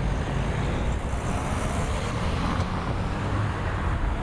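Road traffic on a city street: car engines running and tyres on the road, a steady hum with no single standout event.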